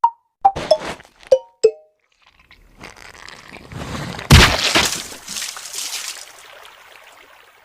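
Cartoon sound effects: a few quick plinking clicks, then a swelling rush into a loud crash of breaking glass that fades out over about three seconds.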